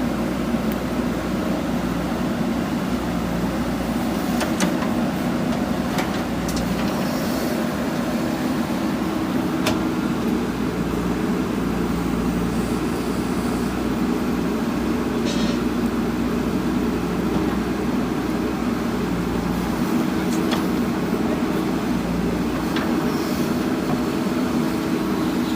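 JCB backhoe loader's diesel engine running steadily under work load, with a few faint knocks scattered through it.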